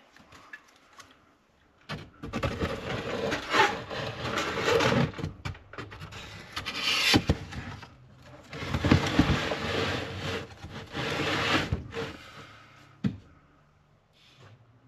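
Plastic milk crate scraped and slid along a rough wooden shelf board. There are two long rounds of scraping, the first about two seconds in and the second just past halfway, then a single sharp knock near the end.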